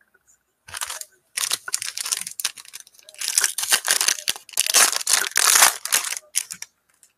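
Foil wrapper of a 2019 Topps Tier One baseball card pack torn open by hand and crinkling. A run of irregular rips starts about a second in, is loudest in the second half and stops shortly before the end.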